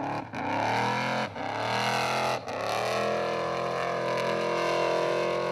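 Off-road race buggy's engine at high revs as it claws up a steep dirt slope with its wheels spinning. The revs dip and climb back about once a second, three times, then hold steady.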